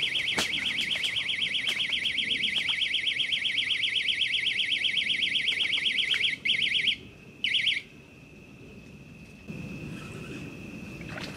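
Cheap clip-on electronic bite alarm on a catfish rod sounding a loud, rapid, high-pitched warbling beep, the signal that a fish has pulled the line tight. It cuts off about seven seconds in, beeps once more briefly, then stops, leaving low rustling near the end.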